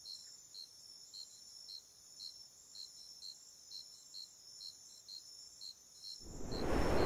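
Crickets chirping at night, a high chirp about twice a second. About six seconds in, a gust of wind rises, the gust that blows out a paper lantern.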